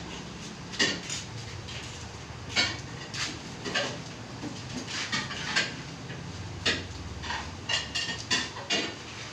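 About a dozen irregular clinks and knocks of hard objects, some with a brief ringing tone, over a steady low hum.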